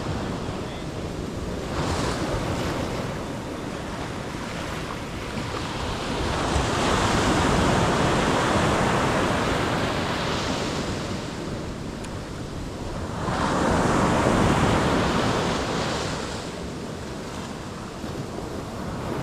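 Ocean surf breaking on a beach, the noise swelling loudest twice as waves break, with wind buffeting the microphone.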